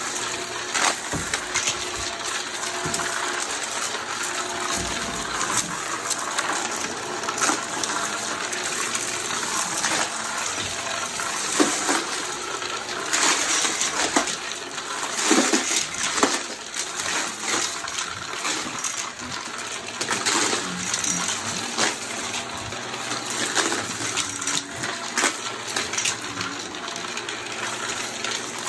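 Vacuum cleaner running steadily, with frequent short rattling clicks through the whole stretch.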